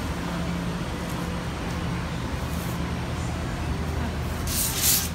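Steady low hum of restaurant kitchen equipment running, with one short hiss near the end.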